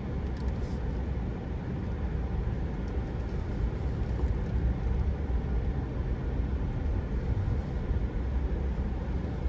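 Steady low rumble of a car moving slowly, heard from inside the cab: engine and tyre noise.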